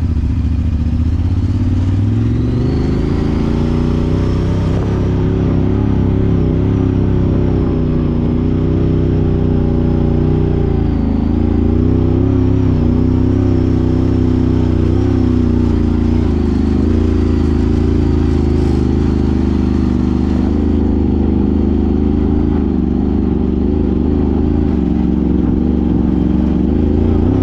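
Side-by-side UTV engine revving up over the first few seconds and then held at high revs, its pitch wavering up and down as it pulls hard up a steep hill climb.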